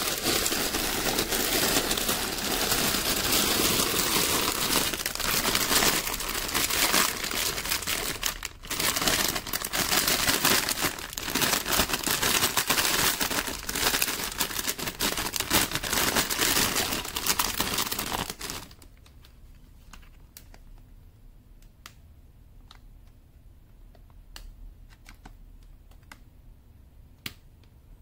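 Clear plastic bags of building-brick parts crinkling and rustling as they are handled, loudly and without a break for about two thirds of the time. The crinkling then stops suddenly, leaving only scattered light clicks and taps.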